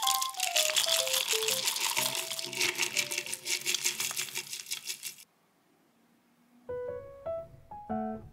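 Granola clusters pouring out of a glass jar and clattering into a wooden bowl, a dense run of small clicks over a light background melody, cutting off suddenly about five seconds in. After a short pause, plucked guitar music begins.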